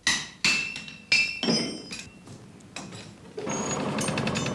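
A blacksmith's hammer striking a horseshoe on the anvil three times in just over a second, each blow ringing, followed by a couple of lighter taps. About three and a half seconds in, the forge bellows starts up with a steady rush and a fast rattle.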